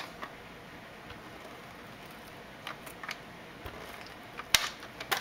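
A few faint paper-handling ticks on a tabletop, then an adhesive tape runner pressed onto a small paper cutout: a sharp click near the end and a short rasp as the tape is laid down.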